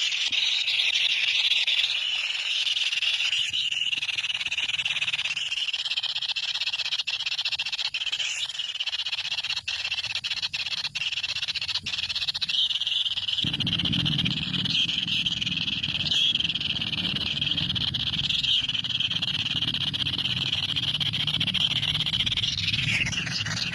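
A dense, steady chorus of high calling animals. A low hum joins suddenly about halfway through.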